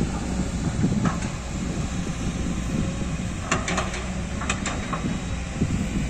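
Hydraulic excavator's diesel engine running steadily while digging soil, with a few sharp knocks about a second in and again in quick clusters around three and a half and four and a half seconds in.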